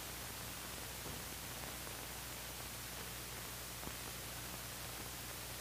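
Steady hiss with a low hum underneath, the background noise of an old film soundtrack, with one faint tick a little before four seconds in.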